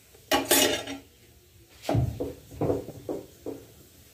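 Spatula scraping and knocking against an iron griddle (tawa) as a roti is pressed and turned: one sharp scrape-like clatter about half a second in, then a quick run of shorter knocks.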